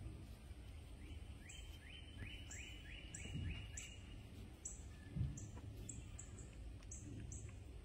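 Faint outdoor birdsong. Short high chirps repeat on and off, and a bird sings a quick run of about six repeated notes between one and three seconds in. A few dull low thumps sound, about three and five seconds in.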